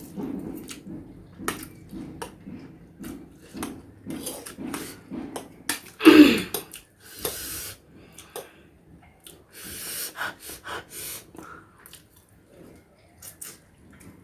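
Eating spicy instant noodles: wet chewing and slurping smacks, with hard hissing breaths drawn against the chilli heat. About six seconds in comes one loud short cry that falls in pitch.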